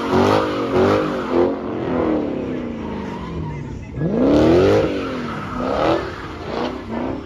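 Dodge Challenger's engine revving hard in repeated rises and falls as the car drifts with its rear tyres spinning, with a big climbing rev about four seconds in.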